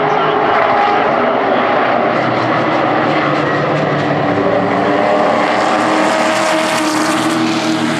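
A pack of stock-car race trucks running at speed around a paved oval, their engines sounding together in a steady, loud drone. Near the end the sound gets brighter and harsher as the pack comes past close by.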